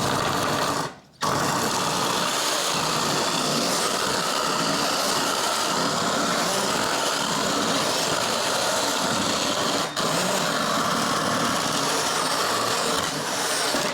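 Drill driving a chainsaw attachment, the chain running with a steady high whir. It stops briefly about a second in and dips for a moment near ten seconds, as the trigger is let off.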